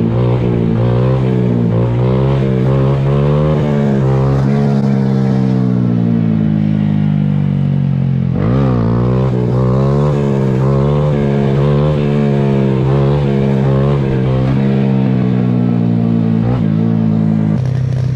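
Dirt bike engines running, with the pitch rising and falling again and again over a steady engine note, and a quick sharp rev about eight and a half seconds in.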